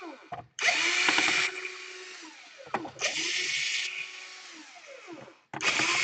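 Electric screwdriver running in three short bursts about two and a half seconds apart, each ending in a falling whine as the motor winds down, while backing out laptop case screws.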